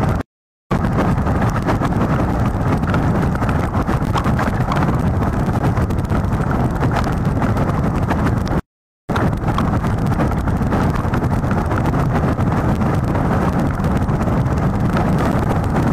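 Strong wind buffeting the microphone of a nest camera mounted in a birch tree, a steady low rumbling noise. The sound cuts out completely twice, briefly near the start and again about nine seconds in.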